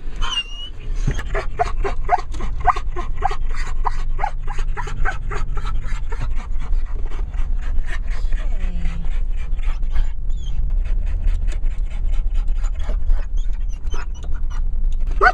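Labradoodle whining and yipping in a quick run of short calls, several a second, with a lull for a few seconds near the end, over the steady low rumble of the car driving.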